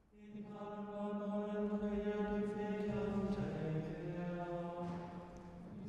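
A monk chanting the office in plainchant: one male voice holds long notes on a steady reciting pitch. About three seconds in it moves to slightly lower notes, then fades near the end.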